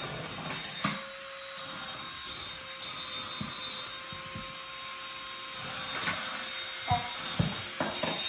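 Suction fan of a remote-control wall-climbing gecko toy whirring steadily, a hiss with a thin whine in it. A few short knocks come about a second in and several more near the end.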